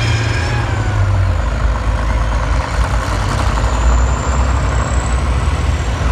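Heavy tank and armoured-vehicle engines running as several tracked vehicles drive around a dirt track: a deep, steady rumble, with a faint thin whine rising briefly about four seconds in.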